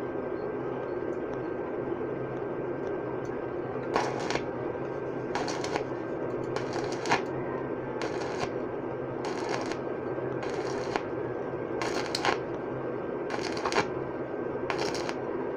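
Stick welding on stainless steel pipe: a steady frying crackle from the arc, with about nine short, sharper bursts of crackle spaced a second or so apart from about four seconds in.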